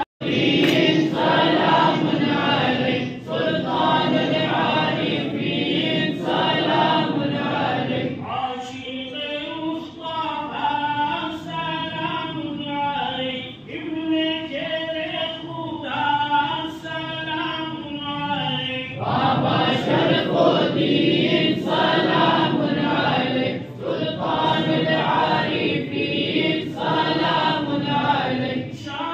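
A large group of men chanting a devotional litany together in unison, many voices at once.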